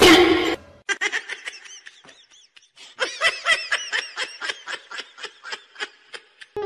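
Human laughter: a fast run of short laugh syllables, each rising and falling in pitch, about five a second, with a short lull midway. It opens with a brief loud burst of noise.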